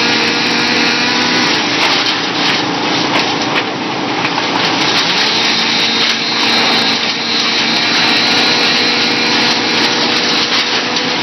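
Bandit 280 wood chipper running loud and steady, its engine tones under a constant rushing whir from the spinning cutter; the engine's pitch shifts slightly a few seconds in, then holds.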